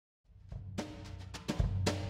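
Background music with a steady low bass and drum hits, starting after a moment of silence and growing louder.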